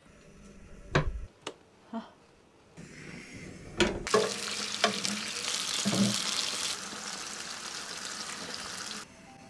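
A chef's knife knocks three times on a wooden cutting board while slicing mushrooms. Then sliced mushrooms fry in a hot pan with a steady sizzle, broken by a few knocks and scrapes, until the sizzle cuts off abruptly near the end.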